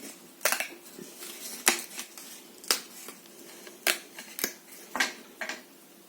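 Irregular sharp clicks and taps, about eight over six seconds, as small seed packets and containers are handled.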